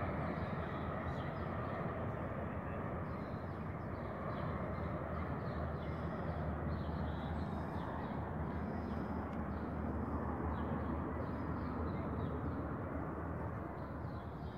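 Twin-engine turboprop airliner on final approach and landing, a steady drone of engines and propellers with a low hum, easing off slightly near the end.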